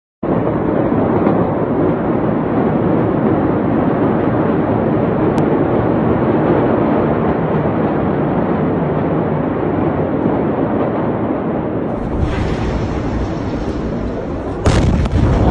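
A steady rushing noise gives way, about twelve seconds in, to a heavier, deeper rumble. Near the end comes a sudden loud boom as the blast of the 2020 Beirut port explosion, a huge store of ammonium nitrate going off, reaches the filming position.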